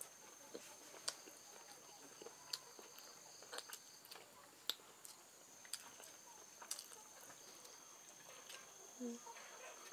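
Quiet eating: chewing, and chopsticks picking at a dish of stir-fried stream snails, giving scattered sharp clicks about once a second. A faint steady high tone runs underneath.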